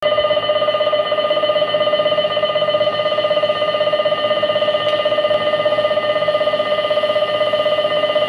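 Station platform departure bell ringing continuously and loudly, a steady metallic electric-bell ring that signals the train's doors are about to close.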